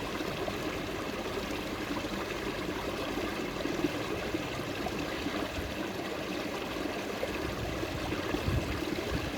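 Water of a small forest stream flowing steadily, a continuous babbling and trickling.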